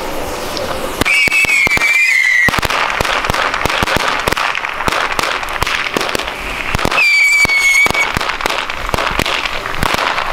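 Ground fireworks from a fuse-linked string of firecrackers going off, with dense crackling and popping throughout. A high whistle from a whistler sounds about a second in and again after about seven seconds, each lasting a second or so and dipping slightly in pitch.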